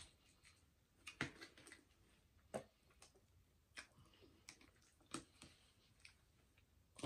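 A handful of soft clicks and knocks about a second apart: plastic condiment bottles being handled, their caps clicking and the bottles tapping on the table.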